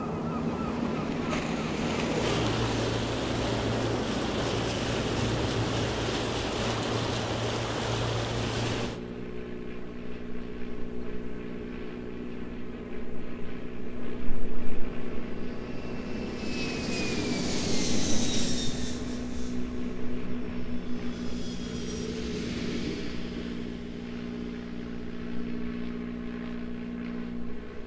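Steady rush of wind and sea for about the first nine seconds, then a sudden change to a turboprop airliner taking off: a steady propeller drone, with a high whine that falls in pitch as the plane passes about halfway through.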